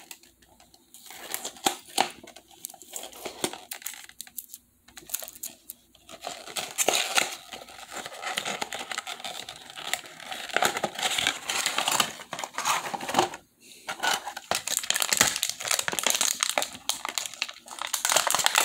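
A small cardboard box being opened by hand, then its clear plastic insert crinkling and rustling as it is handled and pulled out. The crackling is sparse at first and grows denser and louder about six seconds in.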